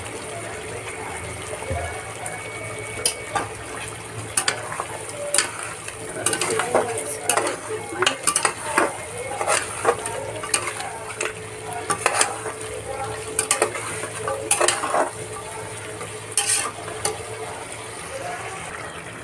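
Metal spatula scraping and knocking irregularly against the sides of an aluminium pressure cooker as mutton pieces are stirred in a thick onion-and-yogurt gravy. The gravy sizzles steadily underneath.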